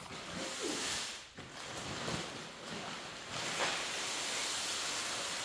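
Steady rushing air noise from the blower fan that inflates an inflatable paint booth.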